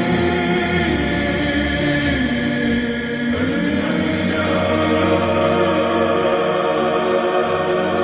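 Slowed and reverbed Arabic nasheed: a choir of voices holding long notes with heavy reverb, the pitch shifting about three and a half seconds in.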